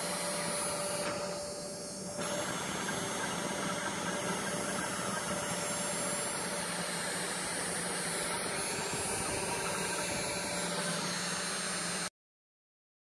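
CNC 3020 router spindle running steadily with an engraving bit, milling isolation traces in copper-clad PCB board: an even hiss with a low hum. It dips briefly just after the start and cuts off suddenly near the end.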